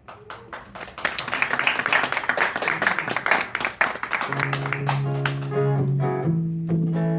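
Live song intro: an acoustic guitar strummed quickly, joined about four seconds in by long, held low notes on a bowed string instrument that change pitch twice.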